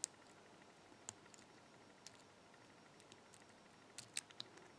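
Faint, scattered metallic clicks of a lock pick and tension wrench working the pins of a Lockwood 5-pin pin-tumbler padlock: a sharp click at the start, a few single ticks, then a small cluster about four seconds in.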